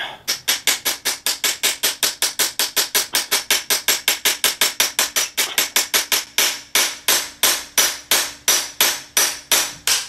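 Hammer striking a steel pin punch in quick, even, ringing blows, about five a second and slowing a little after six seconds, driving out a stuck shift linkage spring pin.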